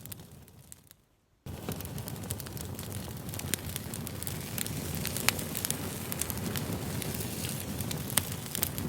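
Campfire crackling: a low rumble of flames with frequent sharp pops and snaps of burning wood. The sound fades away over the first second and a half, then comes back abruptly.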